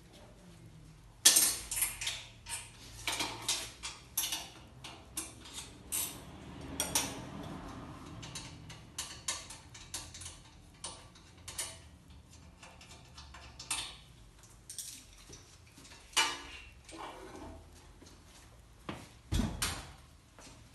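Metal parts of a rain-gutter downspout-forming machine being handled, taken off and fitted back: irregular metal-on-metal clinks, clicks and knocks, a loud clank about a second in and a dull thud near the end.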